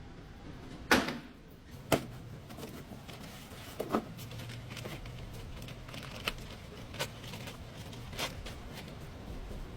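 Scattered sharp knocks and clicks, about five in all, over a low steady hum: tools and metal parts being handled during a front CV axle replacement.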